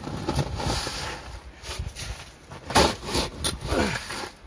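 Snow shovel digging into and scraping through packed snow, several separate strokes with a noisy scrape between them.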